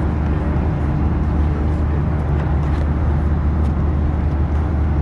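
Cabin noise of a Boeing 737-800 in flight: a steady rushing of airflow and engine noise with a deep, even hum underneath.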